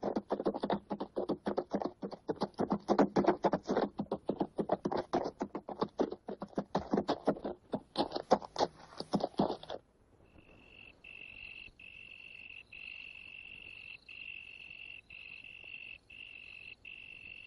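Horse hooves galloping in a quick, uneven beat that stops abruptly about ten seconds in. A cricket's high, steady trill follows, broken by short gaps about once a second.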